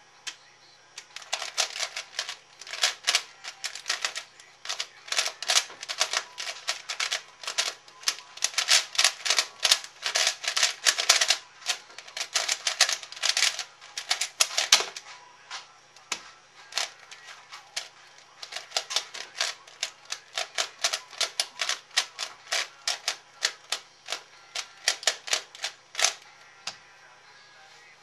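Layers of a C4U 3x3x3 speedcube clacking as it is turned fast during a speedsolve: a dense run of quick plastic clicks for about fourteen seconds, ending in a sharp tap. Slower, sparser turning clicks follow.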